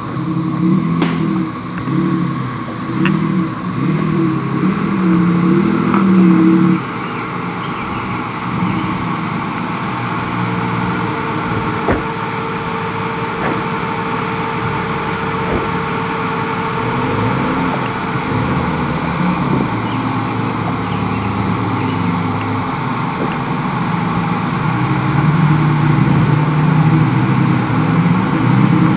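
Nissan Xterra SUV engine revving as the truck crawls up a rutted dirt trail, its note rising and falling. It drops suddenly about seven seconds in and swells again near the end, with a few sharp knocks along the way.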